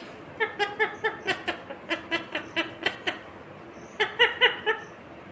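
Indian ringneck parakeet chattering: a quick run of short, clipped pitched notes, about four or five a second, then a pause and a second short burst of notes.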